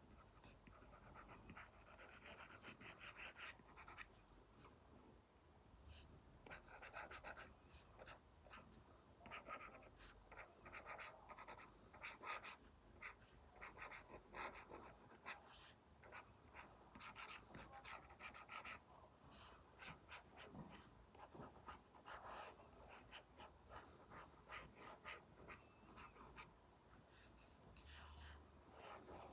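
Faint scratching of an Apple Pencil tip drawing on an iPad screen covered with a paper-like film: many short, quick strokes in a row.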